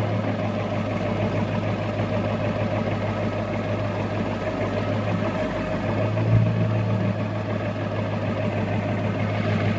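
Ford F-250 pickup's engine running steadily, heard from inside the cab as a constant low drone, slightly louder for a moment about six seconds in.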